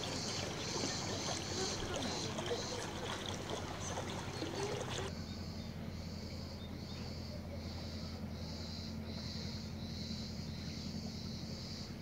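Cicadas buzzing in the trees, a steady high chorus that, about five seconds in, turns into a regular pulsing of roughly one and a half beats a second. A faint murmur of voices and other clutter lies under it at first and stops abruptly at that point, leaving a low steady hum beneath the cicadas.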